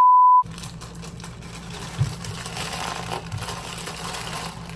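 A loud, steady high test-tone beep lasting about half a second, cut off abruptly, then a plastic cereal bag crinkling and rustling as it is handled, with a soft thump about two seconds in.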